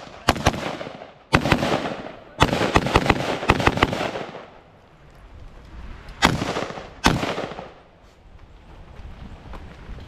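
Rifle shots fired in a shooting-match stage: a few quick single shots, then a rapid string of shots about two and a half seconds in, and two more spaced shots about six and seven seconds in.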